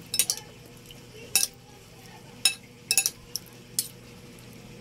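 Two metal spoons tossing and mixing raw fish kinilaw on a plate. The spoons clink against the plate and each other with a handful of sharp clinks at uneven intervals.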